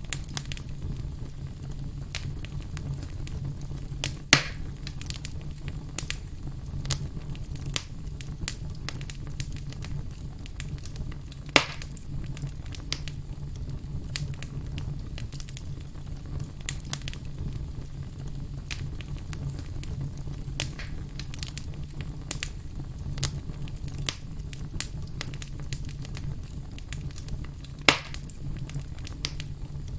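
Firewood burning with steady crackling: many small snaps over a low, even rumble, with three louder pops about 4, 12 and 28 seconds in.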